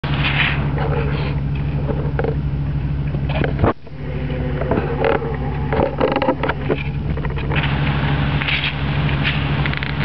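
Steady low hum of an engine running nearby, which cuts out briefly just before four seconds in. Over it come scattered light splashes and knocks as a stick stirs the shallow riverbed.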